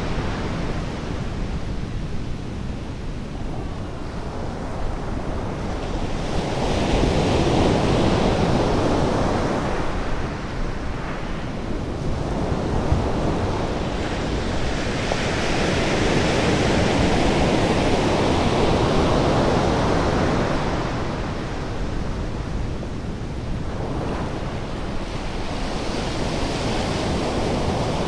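North Sea surf breaking on a sandy beach, a steady rush of water that swells and fades every several seconds as the waves come in.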